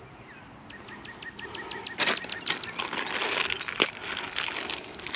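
Plastic irrigation fittings and packaging being handled: a quick run of light ticks, then irregular cracks and crackles from about two seconds in.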